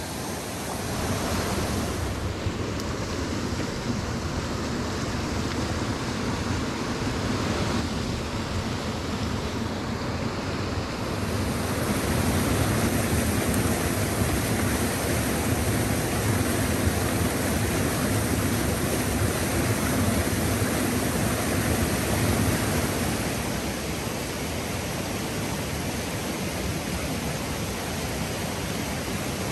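Creek water rushing steadily over small log-and-gravel steps in the streambed, a continuous even rush that swells slightly midway.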